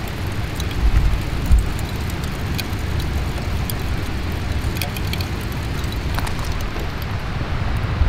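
Wind rumbling on the microphone over a steady outdoor hiss, with heavier buffets about a second in and a few faint, sharp ticks scattered through.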